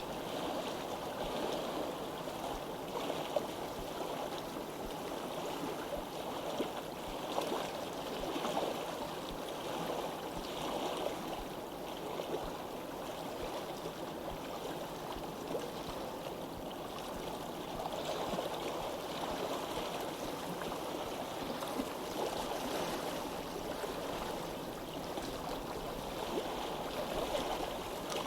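A stream of running water flowing steadily.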